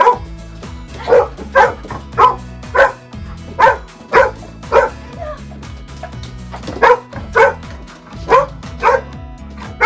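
A dog barking over and over, about two barks a second, with a pause of a second or two past the middle, over light background music.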